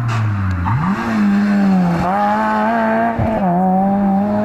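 Rally car engine running on a special stage. The revs are low at first, then climb sharply about a second in as the car accelerates hard, and stay high with brief dips at gear changes about two and three seconds in.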